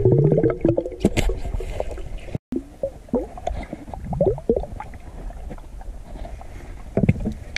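Underwater sound from a submerged camera: gurgling, bubbling water with scattered knocks and clicks and short squeaky glides. It cuts out completely for a moment about two and a half seconds in.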